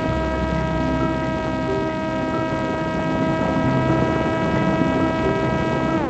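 Parrot Disco fixed-wing drone's electric motor and pusher propeller running at a steady speed: an even, high whine of several pitches held constant, over a rush of air.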